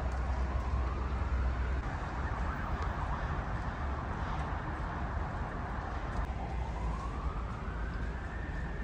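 An emergency-vehicle siren wailing in slow rising sweeps: the pitch climbs, holds, drops about six seconds in and climbs again near the end. Under it runs a steady low rumble.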